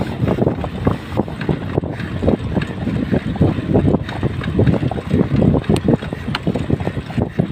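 Wind buffeting the microphone of a camera on a moving bicycle: a loud, uneven rush that keeps surging and dropping. A couple of sharp ticks come late on.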